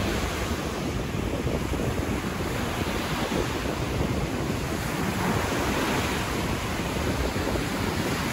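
North Sea surf washing steadily onto a wide sandy beach, with wind rumbling on the microphone.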